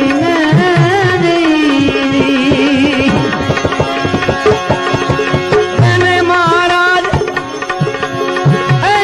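Instrumental interlude of a Gujarati bhajan: tabla strokes, with the bass drum notes bending in pitch, under a melodic instrument playing wavering, ornamented phrases.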